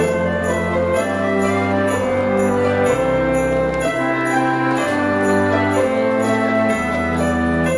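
Instrumental background music: orchestral chords over a bass note that changes about once a second, with a steady jingle of bells running through it.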